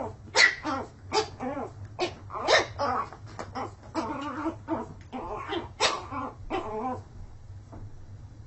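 Small dog barking in a quick string of high yaps, about two a second, that trail off about seven seconds in.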